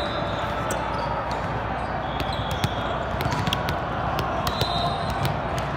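Busy volleyball tournament hall: volleyballs being hit and bouncing on many courts as scattered sharp smacks over a steady murmur of voices, with a couple of brief high-pitched tones. The whole carries the echo of a very large hall.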